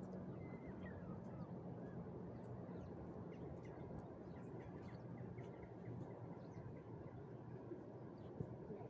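Many faint, short bird chirps over a steady low background rumble, with one small knock near the end.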